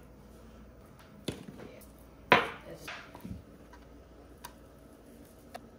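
Scattered knocks and clicks of kitchen items being handled on a stone countertop and a plastic cutting board. The loudest is a sharp knock a little over two seconds in, with smaller taps around it.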